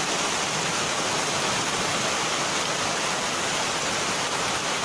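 Floodwater rushing steadily after heavy rain, an even continuous rush of moving water.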